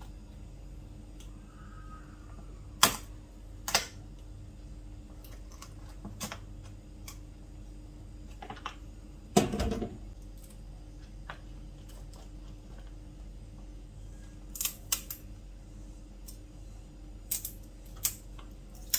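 Scattered sharp clicks and knocks of a knife and hard mud crab shells against a wooden cutting board and a stainless-steel sink as live crabs are stabbed and handled. The loudest knock, with a brief rattle, comes about halfway through, and a few quick clicks follow near the end, over a steady low hum.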